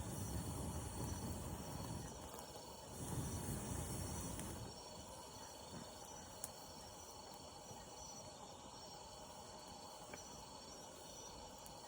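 Steady faint chorus of insects such as crickets, with a low rumbling noise during the first few seconds and a couple of faint clicks.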